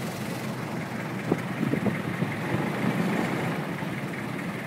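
Motorboat engine running steadily as the boat travels across the water, with a few uneven bumps of noise in the middle.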